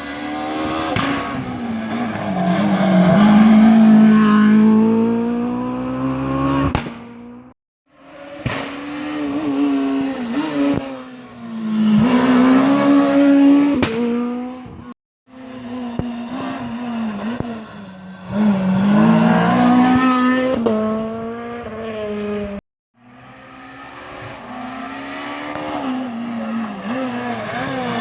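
Rally cars' engines at full throttle on a stage, revving up and dropping in pitch at gear changes, in four separate passes that each cut off abruptly.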